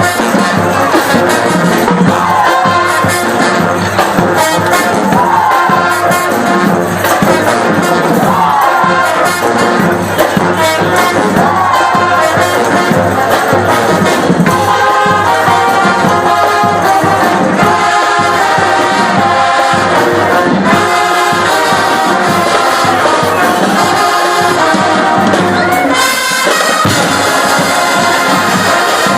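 Drum and bugle corps playing: brass horns over marching drums, with sliding melodic figures in the first half, held chords in the second, and a cymbal-like crash near the end.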